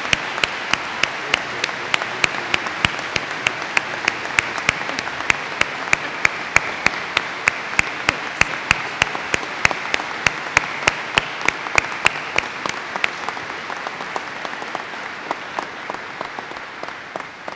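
Audience applauding at length, with one pair of hands clapping close to the microphone at about three claps a second. The applause dies down near the end.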